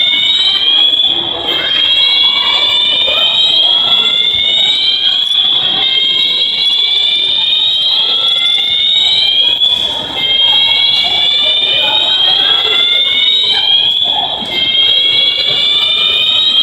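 Building fire alarms sounding a loud siren-like tone that slides slowly up in pitch over a few seconds, then drops back and starts again, over and over.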